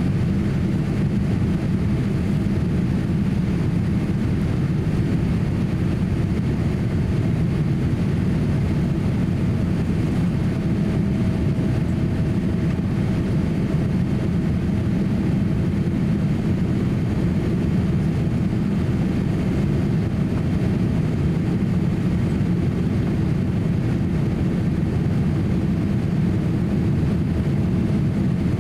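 Steady cabin noise inside a Boeing 787-8 airliner in flight: a low, even drone from the jet engines and the rushing air, with a faint steady hum above it.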